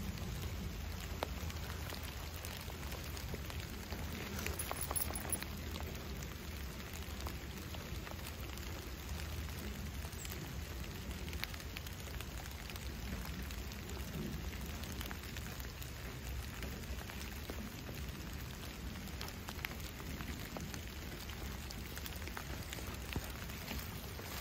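Steady rain falling on dead leaves and the ground: an even hiss with scattered ticks of single drops and a low rumble underneath.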